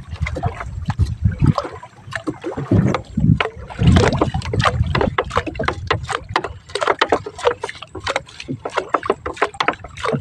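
Fishing net being paid out by hand over the side of a small wooden outrigger boat: rapid, irregular clicks and knocks of net and line against the hull, densest in the second half, over a low rumble in the first half.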